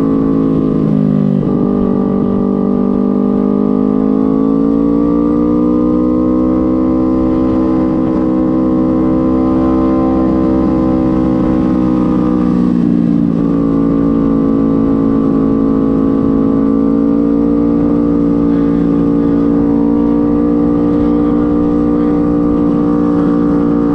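Sport motorcycle engine running at a steady cruise, heard from the rider's seat with wind rumble. The engine note changes about a second in and again around the middle, then holds steady.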